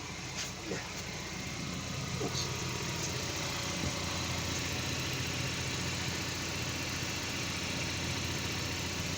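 Chevrolet Camaro's 2.0-litre turbocharged four-cylinder (LTG) engine idling steadily with freshly changed oil, running evenly with no untoward noises.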